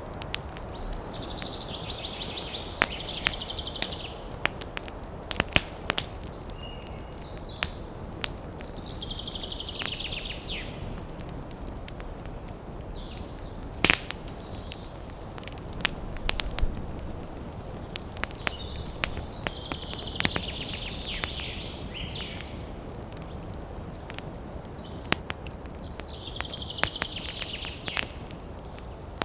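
Campfire crackling, with scattered sharp pops over a steady rushing background. Four times, a short high rasping sound lasting a second or two rises above the fire.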